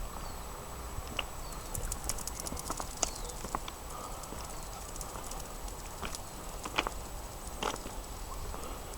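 Scattered light clicks and taps at irregular intervals over a faint steady hiss.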